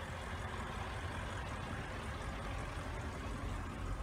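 Audi RS6 Performance's twin-turbo 4.0-litre V8 idling steadily through its sport exhaust, a low, even engine note.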